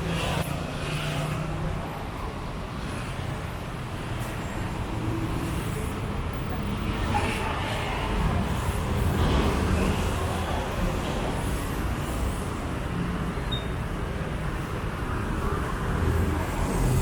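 Street traffic: vehicle engines running and passing in a steady low rumble.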